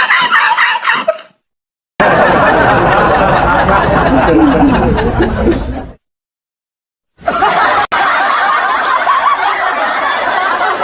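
A run of short laughter sound effects, snickering and chuckling, played one after another with brief silent gaps between them. A high, wavering voice-like effect cuts off about a second in.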